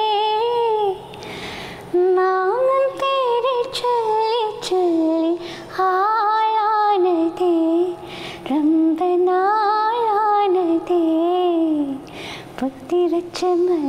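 A woman singing a Malayalam song solo with no accompaniment, in long held, wavering notes with ornamented turns, breaking off briefly for breath between phrases.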